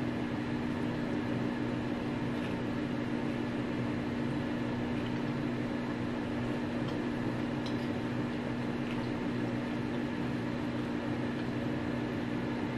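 Steady low mechanical hum with a few held tones, under a few faint soft clicks from chewing a chewy snack bar.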